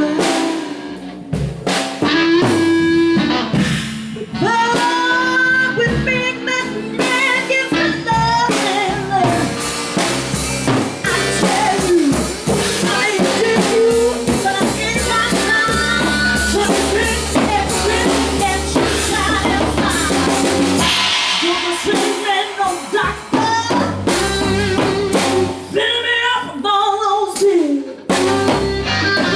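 Live band music: a drum kit and guitar playing together in a steady groove.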